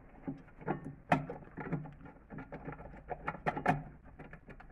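Irregular small metallic clicks and taps as a nut is turned by hand onto a rear brake caliper's mounting bolt and the caliper is handled. The loudest tap comes about a second in, with a few more just after three seconds.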